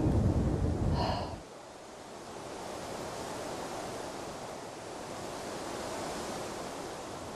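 Wind buffeting the microphone as a low rumble for the first second or so, then a steady, even wind hiss.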